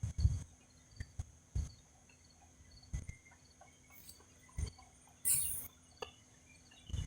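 Crickets trilling steadily at a high pitch. The trill is broken by a string of short, low thumps on the microphone and a brief hiss about five seconds in.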